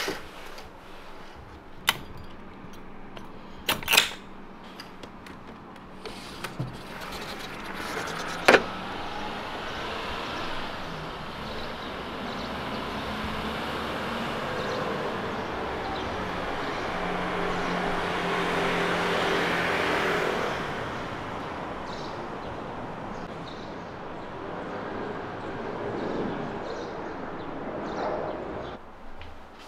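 Street ambience with a vehicle passing, slowly growing louder and then fading over about ten seconds in the middle. A few sharp clicks come in the first several seconds.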